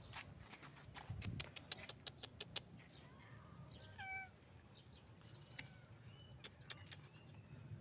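Faint, brief cat meows about four seconds in, among a scatter of faint clicks and taps.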